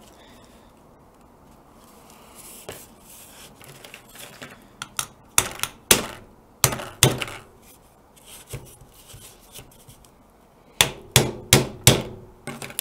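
A screwdriver handle knocking on a motorcycle carburetor to free a float bowl stuck fast after long sitting. It comes as a run of about five sharp knocks, then after a pause another run of about five.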